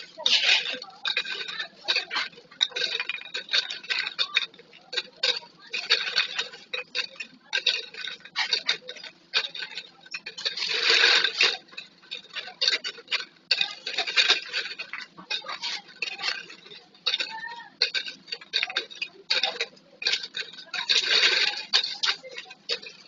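Flip-top bottles clicking and clattering against one another as they are handled, a quick irregular run of clicks with a few longer rattling stretches.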